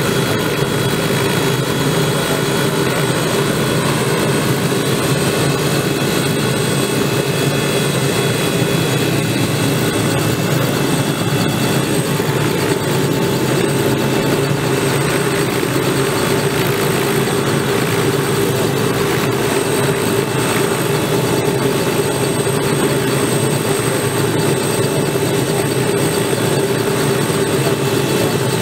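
Robinson R66 helicopter's Rolls-Royce RR300 turbine engine running on the ground with the main rotor turning, a steady high whine over the engine and rotor noise that holds at one level throughout.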